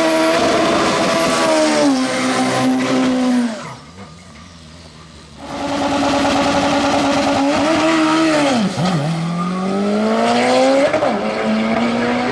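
Drag-racing car engine running hard, its pitch dipping and climbing. It cuts out abruptly just under 4 seconds in and returns about a second and a half later. Near the end it climbs steadily and steps at what sounds like a gear change.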